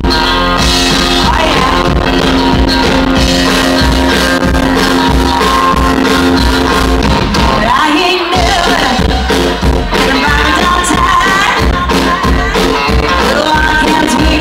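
Live rock band playing loud: electric guitars and drums, with a sustained chord held for the first half, a brief break in the low end about eight seconds in, then the band comes back in with a woman singing over it.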